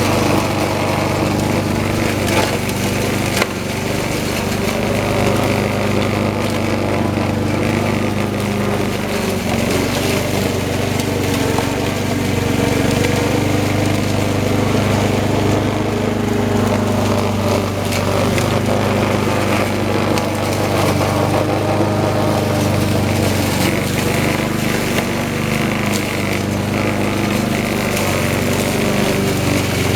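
Troy-Bilt 21-inch walk-behind lawn mower running steadily while cutting tall grass, with scattered sharp ticks and cracks over the engine.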